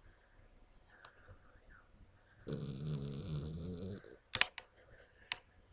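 A sleeping Chihuahua snoring: one long snore lasting about a second and a half near the middle, then a few sharp clicks, the loudest sounds.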